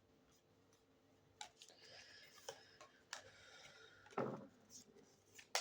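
Near silence with a few faint scattered clicks and taps, one slightly louder soft thump about four seconds in and a sharp click near the end.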